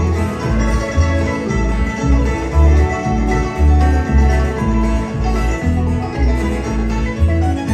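Live bluegrass band playing an instrumental passage with banjo, acoustic guitar, fiddle and upright bass, the bass thumping out a steady beat about twice a second.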